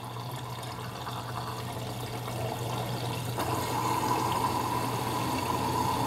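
Midea HealthGuard Smart 13 kg front-loading washing machine filling with water for its final rinse, the rinse in which it releases the fabric softener: water rushing into the drum over a steady low hum. A higher steady tone joins about halfway through, and the sound grows slowly louder.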